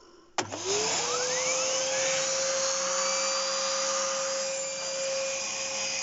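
Hoover Spirit vacuum cleaner switched on with a click, its motor spinning up in a fast rising whine and then running steadily with a loud, drill-like whine over a rush of air.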